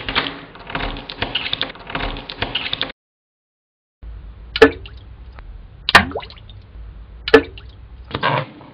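Three drops of water plop into a basin of water about 1.4 s apart, each a sharp, loud drip with a quick falling pitch, over a low hum. Before them, a dense crackling noise that swells about once a second cuts off suddenly, followed by a second of silence. Crackling starts again near the end.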